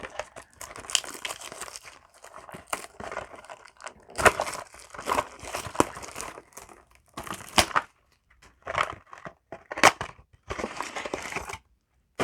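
Crinkling and tearing of card packaging, in irregular bursts with sharp snaps: a Yu-Gi-Oh! mini box being opened and its foil booster packs handled.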